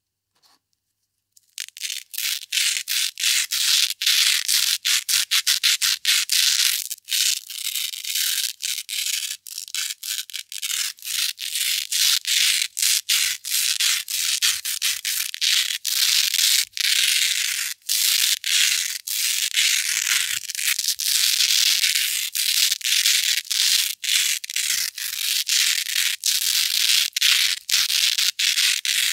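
Hook-and-loop (Velcro) tape rubbed and scratched together in quick back-and-forth strokes, about three a second: a crisp, scratchy rasp. It starts after a second and a half of near silence.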